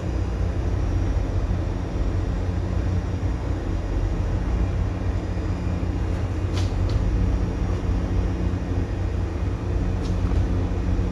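Steady low drone of a ship's engines and machinery, heard inside the wheelhouse, with two light clicks, one about halfway through and one near the end.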